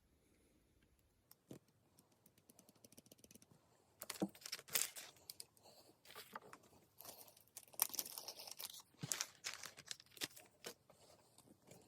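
Irregular clicks and crinkly rustling from hand work on wires and small crimp connectors, starting about four seconds in and going on in scattered bursts.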